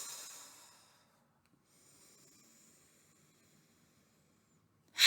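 A woman's slow audible exhale trails away over the first second. A faint breath in follows about two seconds in, and a loud sighing exhale starts just before the end: paced breathing, breathing out on the release.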